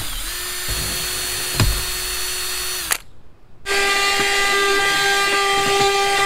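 DeWalt cordless drill running steadily as it drills into a roof rail, stopping about three seconds in. After a short pause a handheld vacuum starts up with a louder steady hum, held at the freshly drilled spot.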